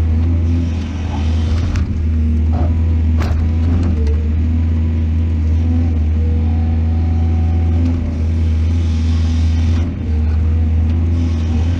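Large excavator's diesel engine running steadily under load, with a few short knocks and clanks from the machine in the first few seconds.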